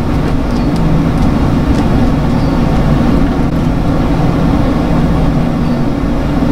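A motor running steadily nearby with a low, even drone.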